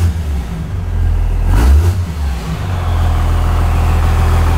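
Cummins 5.9-litre inline-six turbodiesel blipped hard twice, right at the start and again about a second and a half in, then settling back to a steady idle. It sounds loud and open, running with no exhaust past the downpipe. The throttle blips check the freshly fitted ATS Aurora 3000 turbo for housing contact and show that it builds boost.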